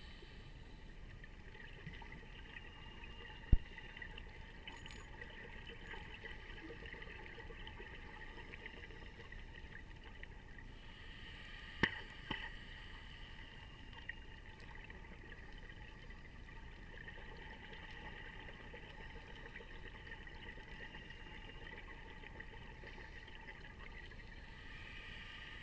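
Muffled underwater sound picked up by an action camera inside its waterproof housing: a steady, faint hiss, broken by a sharp knock about three and a half seconds in and a louder pair of knocks near the middle.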